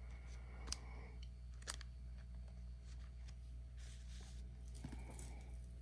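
Baseball trading cards and pack wrappers being handled: two sharp clicks about a second apart near the start, then faint rustling later, over a steady low hum.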